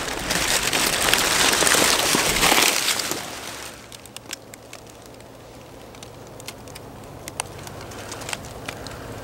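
Loud rustling and rubbing of clothing and camera handling as the hunter turns around, for the first three and a half seconds. After that, quieter scattered crackles and ticks of dry forest-floor leaves.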